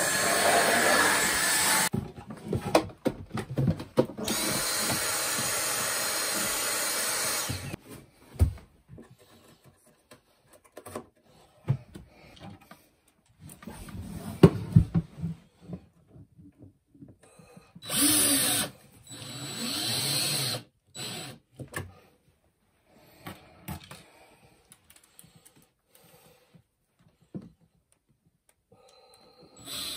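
Power drill running in several bursts, the longest about three and a half seconds, with knocks and handling clatter between them.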